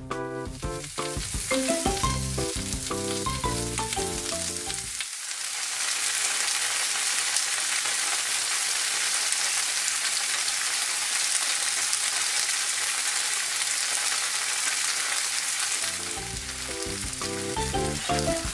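Slices of thick fried tofu (atsuage) sizzling in hot oil in a frying pan as they brown on both sides, a steady hiss. Background music plays over it for the first five seconds and again for the last couple of seconds.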